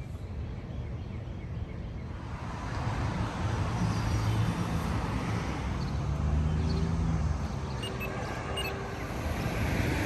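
Road traffic: a vehicle's engine hum and tyre noise swelling from about two seconds in and rising again near the end.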